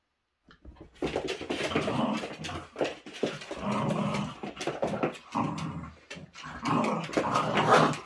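Two small poodle-type dogs play-growling at each other as they wrestle, a near-continuous run of growls starting about a second in, loudest near the end.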